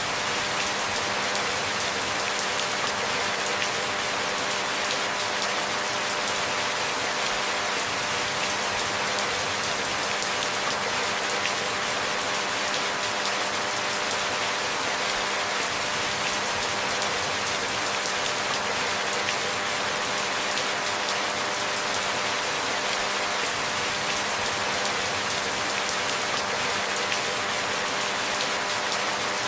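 Steady rain falling, an even hiss of many fine drops with no change in strength.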